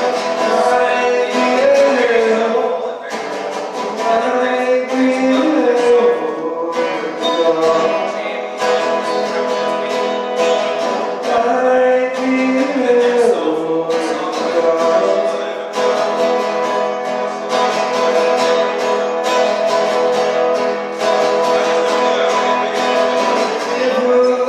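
Live song with a strummed acoustic guitar and a singer's voice.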